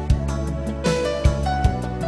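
Background music: sustained pitched notes over a changing bass line, with light regular percussion.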